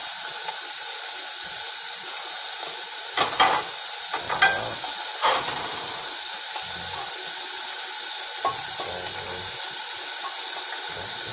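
Bacon and sausage sizzling steadily in a frying pan, with a few sharp clicks from about three to five seconds in.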